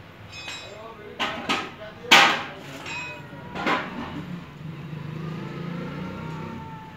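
A series of sharp knocks or clanks, about six in four seconds, the loudest about two seconds in, then a low steady hum.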